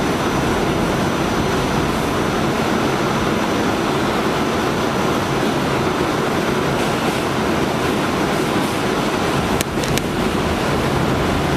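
R46 subway car running at steady speed, heard from inside the car: a constant rumble and rush of wheels on rail. Near the end come two sharp clicks about a third of a second apart.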